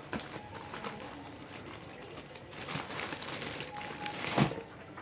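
Packaging being handled: crinkling and rustling with scattered small clicks, busier in the second half, and a sharper knock near the end.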